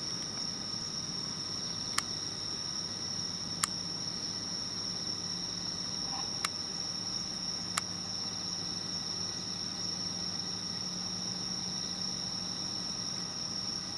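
A steady, high-pitched chorus of night insects such as crickets. Four short, sharp clicks stand out during the first half.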